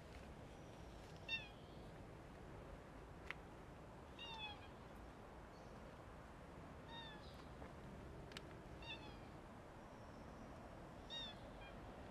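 Black-and-white stray cat meowing faintly: five short meows spaced two to three seconds apart, each dropping a little in pitch. Two sharp clicks fall between them.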